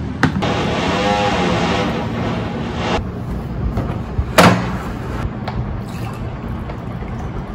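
Steady construction noise in the background. About four and a half seconds in, a sharp knock as a dish is set down on a wooden tray. Near the end, water is poured from a plastic bottle into a glass.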